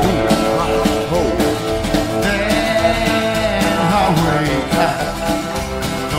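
Live rockabilly band playing with upright bass, acoustic and electric guitars and drums on a steady beat. A harmonica bends and wavers over the top.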